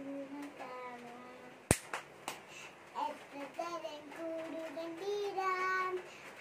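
A young girl singing a Malayalam action song, one voice holding short, slightly wavering notes. A single sharp click cuts in about a second and a half in, the loudest sound here.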